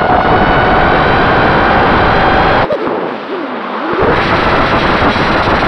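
FPV quadcopter's motors and propellers whining steadily, with rushing wind noise over the onboard camera's microphone. About three seconds in the throttle drops for about a second: the low rumble falls away and the motor pitch slides up and down, then full power comes back.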